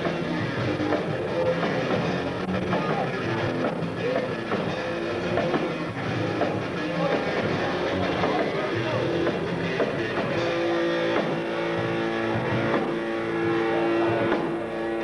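Live rock band playing amplified electric guitars with drums. From about ten seconds in, held notes ring steadily under the playing.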